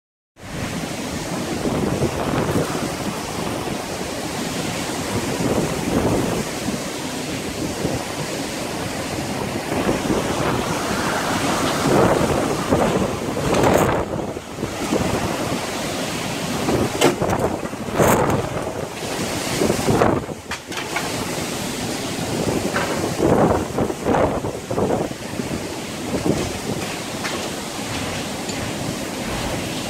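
Strong gusting wind of a bomb cyclone, rising and falling in surges, with wind buffeting the phone's microphone in a few sharp blasts.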